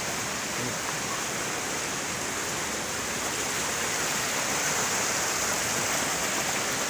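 Steady, unbroken rushing of water, even and hiss-like, in the wet ground of a landslide after heavy rain.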